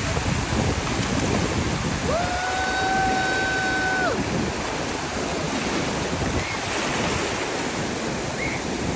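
Surf washing on the beach, with wind buffeting the microphone. About two seconds in, a single high note is held steady for about two seconds.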